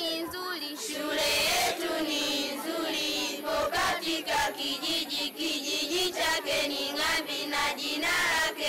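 A group of schoolchildren singing together in a chant-like song.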